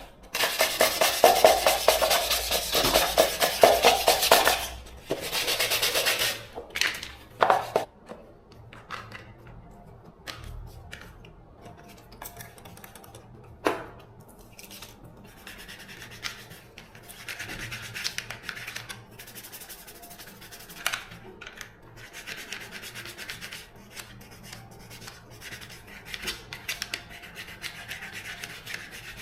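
Rubbing and scraping of hand work on parts, loud and dense for about the first five seconds, then quieter and intermittent with a few sharp clicks.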